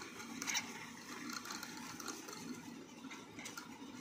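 Faint irregular clicking of several dwarf hamsters licking at the metal sipper tube of a water bottle, with soft rustling of wood-shaving bedding.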